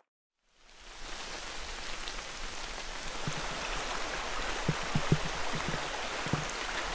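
Steady rain falling, fading in after a moment of silence, with a scatter of soft low knocks in the middle.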